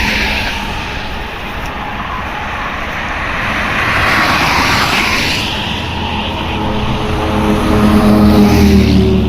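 Large bus driving past, its engine and road noise a steady loud rush. A steady pitched engine drone builds in the last few seconds.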